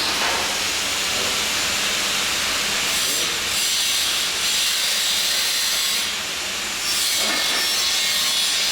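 Electric welding arc hissing steadily, thinning briefly about six seconds in.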